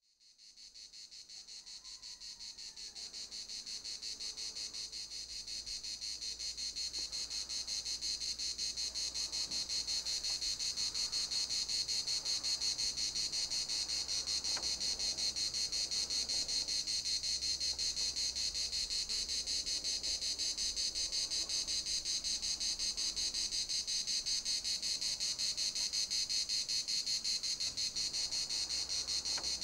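A chorus of cicadas singing steadily, a dense high, fast-pulsing buzz that fades in over the first several seconds and then holds level.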